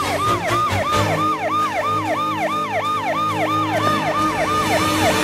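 Emergency vehicle's electronic siren in a fast yelp, sweeping up and down about five times a second, over low background music.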